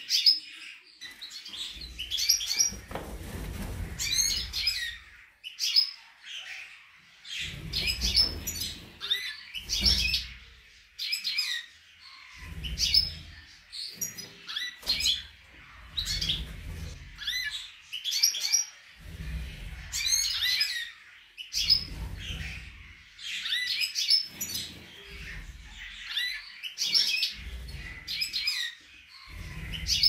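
Caged songbirds, European goldfinches and canaries, chirping and twittering in short, quick phrases that repeat throughout. Low rumbles about a second long come and go underneath.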